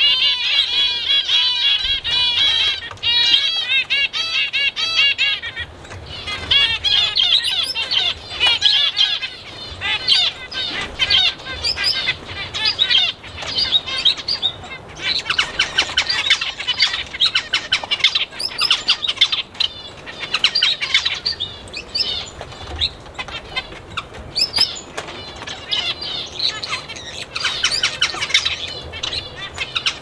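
A mixed flock of small aviary birds chirping and twittering, many rapid high calls overlapping without a break.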